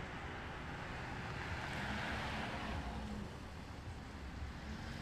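A car passing on the street: tyre and road noise swells to a peak about two seconds in and fades away by three seconds, over a steady low traffic rumble.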